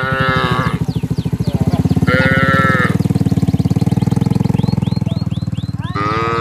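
Cattle mooing, three calls, the last one longer and wavering, over the steady putter of a small engine running throughout.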